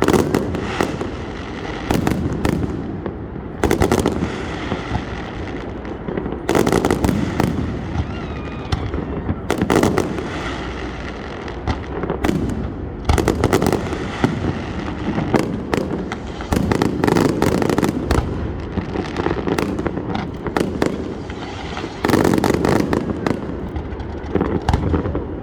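Fireworks going off: loud clusters of bangs and crackling bursts come every one to three seconds, with a low rumble carrying on between them.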